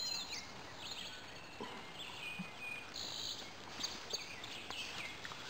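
Faint birds chirping now and then over a low, even background hiss of outdoor ambience.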